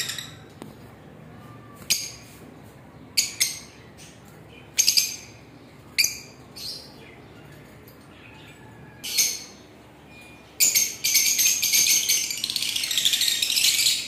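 Caged lovebirds calling: short high-pitched calls every second or two, then a continuous run of rapid chattering calls over the last three seconds or so.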